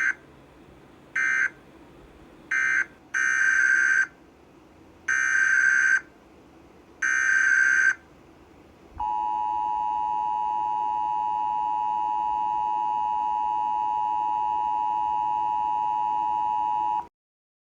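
Emergency Alert System SAME data bursts and attention signal. Three short buzzy bursts close out one alert, and three longer bursts start the header of the next. Then comes a steady two-note attention tone that lasts about eight seconds and cuts off sharply.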